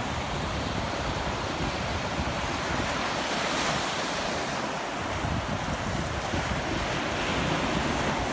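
Surf breaking and washing up on a sandy shore, with wind buffeting the microphone; the low wind rumble eases for a moment midway.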